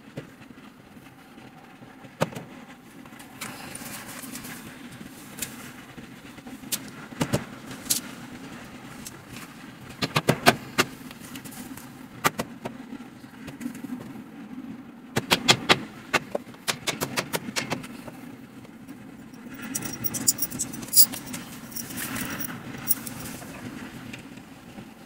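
Knocks, taps and clicks of particleboard flat-pack cabinet panels being handled and fitted together, with several quick runs of sharp taps and a scratchy rustle near the end, over a steady low hum.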